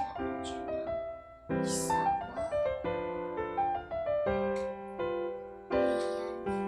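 Background piano music: gentle phrases of notes stepping downward, each phrase starting with a fresh chord.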